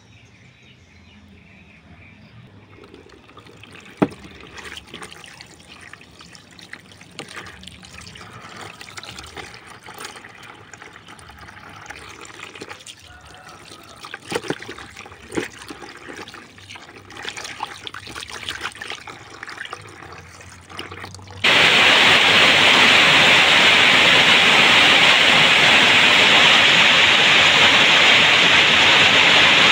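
Hands rinsing a fresh fish in a plastic basin of water: soft, irregular splashing and dripping, with a sharp knock about four seconds in and a few louder splashes midway. About two-thirds of the way through, a loud, steady rushing hiss cuts in abruptly and carries on.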